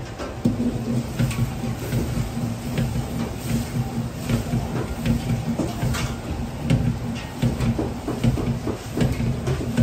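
Large steel wok being shaken and swirled over a high-flame commercial gas wok burner: the burner's steady roar, with repeated metal knocks and scrapes as the wok rocks on the burner ring.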